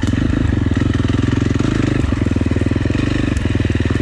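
Dirt bike engine running at low, fairly steady revs, with a rapid even firing pulse, as the bike is ridden slowly along a rough trail.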